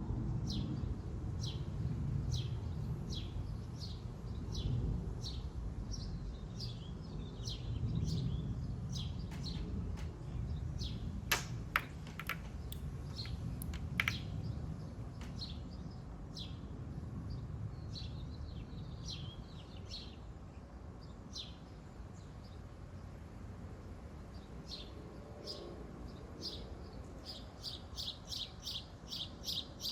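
Small birds chirping: short high chirps roughly once a second, quickening into a fast run of chirps near the end. A few sharp clicks come in the middle, over a low rumble that fades out after about twenty seconds.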